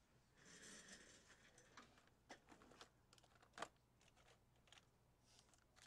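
Near silence with room tone, broken by a brief faint rustle and a scatter of faint clicks, the strongest about three and a half seconds in.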